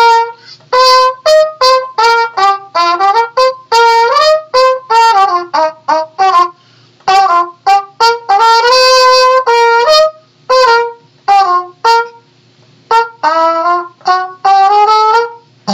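Soundtrack music: a trumpet playing a tune of short, separated notes, with one longer held note about halfway through.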